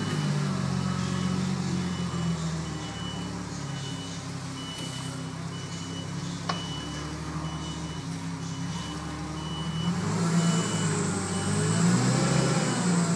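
A vehicle engine runs steadily while its reversing alarm sounds a regular series of high beeps. A single sharp click comes about six and a half seconds in, and a thin high whine joins about ten seconds in.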